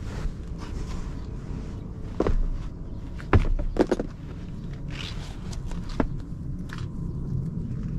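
Handling knocks and thumps as a rolled sheet of black felt is carried into a car and set down on the flattened cargo floor. The loudest knock comes about a third of the way in, a few more follow just after it, and one is near the end. A steady low background noise runs under them.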